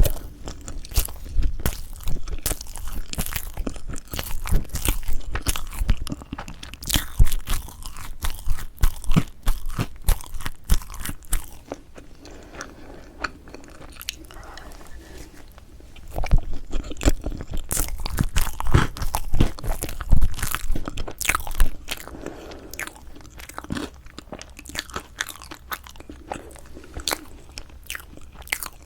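Close-miked mouth sounds of eating strawberry chocolate cream cake: biting and chewing with many quick sharp clicks, busiest through the first ten seconds or so and again from about 16 to 22 seconds, quieter in between and towards the end.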